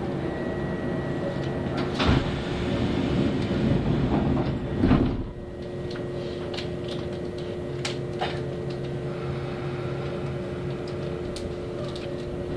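Kintetsu express train's sliding doors closing: a knock about two seconds in, then a hiss building to a heavier thud about five seconds in. After the thud the car is quieter, leaving a steady hum from the train's equipment with a few light clicks.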